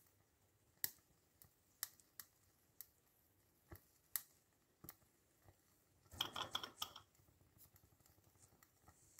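Sparse sharp ticks from a small hand-built model steam engine during its first steaming, with a brief burst of rapid clicking about six seconds in.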